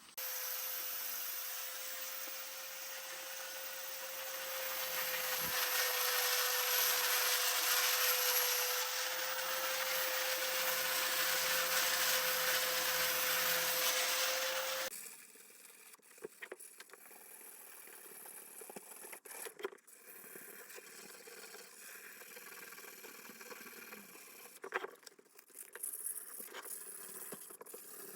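A power tool grinding or sanding the steel sickle blade, its motor humming at a steady pitch under a dense hiss, cuts off abruptly about halfway through. After that come quieter scraping sounds and occasional clicks.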